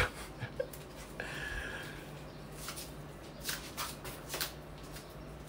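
Scattered light taps and rustles of objects being handled on a counter, over a steady low hum.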